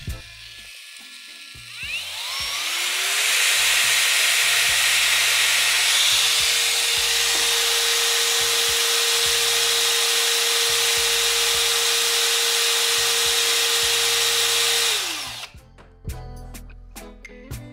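Parkside PFMRA 20-Li A1 cordless paddle mixer spinning up with a rising whine about two seconds in, running loudly at a steady speed, then winding down a couple of seconds before the end.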